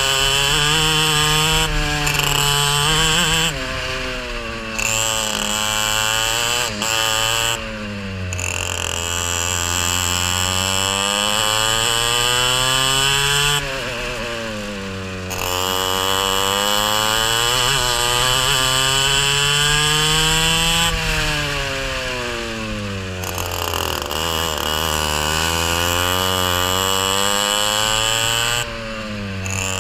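Racing kart engine heard from the kart itself, its revs climbing steadily along each straight and falling sharply as the driver lifts off for corners, about five times in the lap.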